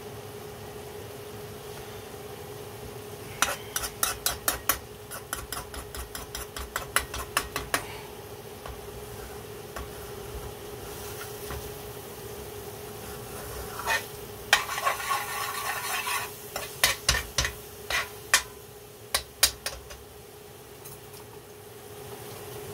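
A metal spoon stirring thick curry sauce in a metal frying pan, knocking and scraping against the pan in two spells of quick clicks, the first a few seconds in and the second past the middle. The sauce sizzles in the pan over a steady hum.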